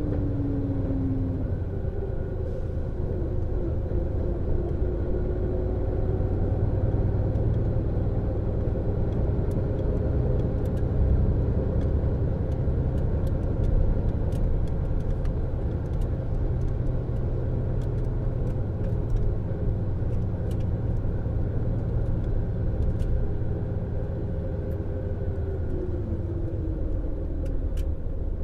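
MAN Lion's Coach engine and drivetrain running under way with a steady low rumble. The engine note holds and then falls away near the end, with faint scattered clicks and rattles.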